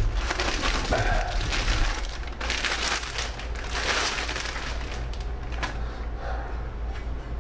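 Plastic bag crinkling and rustling as a body armor plate is handled and slid out of it, over a steady low hum.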